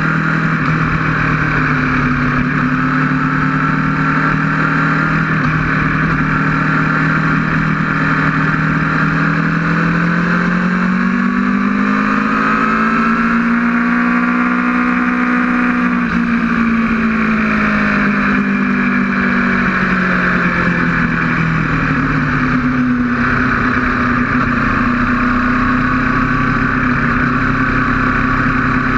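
Aprilia RSV4's V4 engine at full song on track, heard from on the bike with heavy wind rush. The engine note climbs smoothly about a third of the way in, then eases back down over several seconds.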